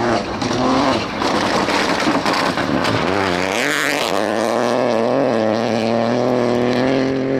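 Rally car engine at high revs on a gravel stage, the pitch stepping through gear changes as it approaches. About three and a half seconds in it passes close with a quick swoop and a hiss of thrown gravel and dust, then pulls away under full throttle at a steady, slowly rising note.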